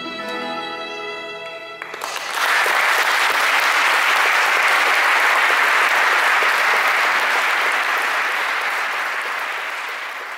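A violin holds the final notes of the piece over Portuguese guitar and classical guitar, ending about two seconds in; then an audience applauds, loud at first and gradually dying down toward the end.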